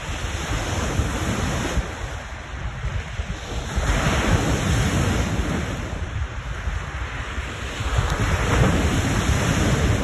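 Lake waves crashing on the shore, swelling up about four seconds in and again near the end, with gusting wind buffeting the microphone in a low rumble.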